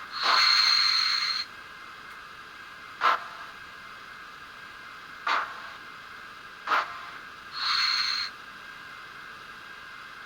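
Sound decoder of a Fleischmann BR52 N-scale steam locomotive playing steam effects through its small onboard speaker: two steam hisses of about a second each, one near the start and one near the end, and single short chuffs spaced a couple of seconds apart in between, over a steady speaker hiss.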